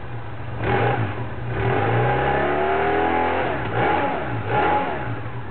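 BMW R1100S boxer twin revving through its stock exhaust silencer: a short blip about a second in, a longer rev that falls back in pitch around the middle, then two quick blips near the end, dropping back to idle in between.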